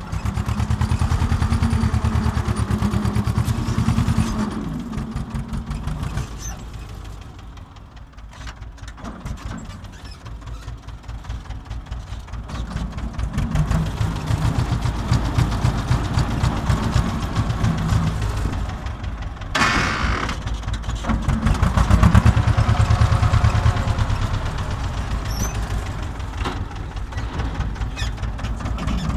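Tractor engine running as the tractor is driven, heard from inside its cab with a steady low pulsing beat. It falls to a quieter, lower note for several seconds about a quarter of the way in, then builds up again; a brief hissing rush cuts in about two-thirds of the way through.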